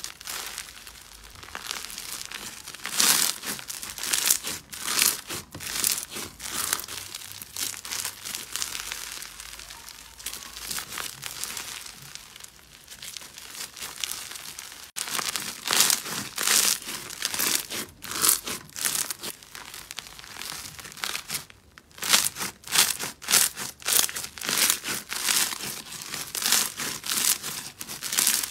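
Crunchy slime packed with foam beads being stretched and squeezed by hand, the beads giving a dense crackle that comes in waves as the slime is worked.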